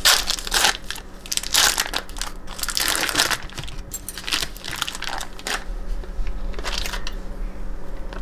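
Foil wrapper of a cream cheese brick crinkling and crackling in irregular bursts as it is torn open and peeled back from the block.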